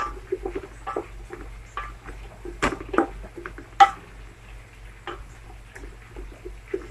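Wooden spoon stirring cut vegetables through a thick masala in a large metal pot, with irregular knocks and scrapes against the pot, a few louder knocks in the middle.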